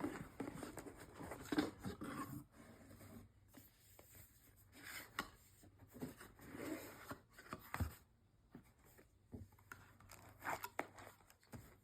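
A mailed package being opened by hand: faint, scattered tearing, crinkling and clicking of packaging as it is handled.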